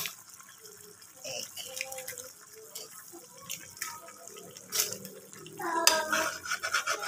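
A spoon tapping a raw egg to crack its shell: a sharp click at the start and more clicks about five seconds in. Between the clicks, a spoon stirs liquid noodle soup in a pot.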